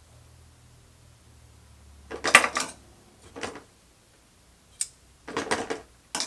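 Small hard parts handled at a sewing machine: a faint low hum, then short bursts of clattering and clicking about two seconds in, three and a half seconds in, a lone click, and two more bursts near the end.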